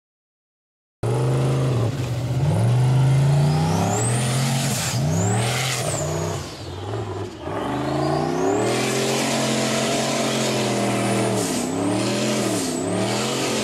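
A Formula Offroad buggy's engine revving hard under load on a steep sand hill climb. The revs rise and fall repeatedly, with a high whine that climbs with them. Silence for about the first second, then the engine comes in loud.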